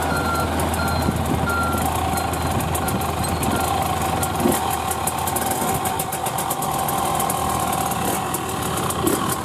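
Husqvarna TE300i two-stroke enduro bike's engine idling steadily, with a quick ticking that grows denser near the end. A high beeping tone repeats through the first two seconds or so.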